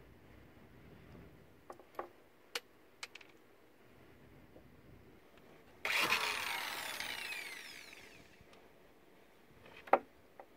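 Corded electric drill run in one short burst about halfway through; its whine falls in pitch as the motor winds down over a couple of seconds. A few light clicks come before it, and one sharp knock near the end.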